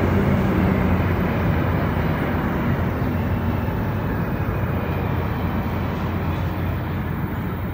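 Rubber-tyred MPM-10 Azur metro train heard from inside the car, running and slowing as it pulls into a station. A low motor hum fades out in the first second, and the running noise eases gradually.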